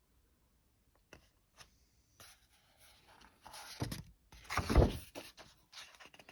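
Paper rustling and handling as a book's page is turned, with a couple of faint clicks first and two louder thumps near the middle.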